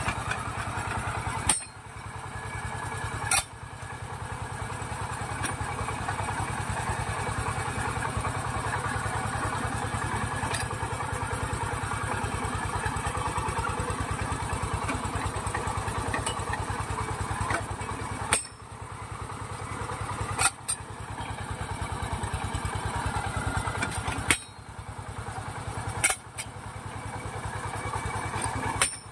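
Engine of a portable drilling rig running steadily with a fast, even putter while the rig drills a borehole. Sharp clacks come now and then, each followed by a brief dip in the sound.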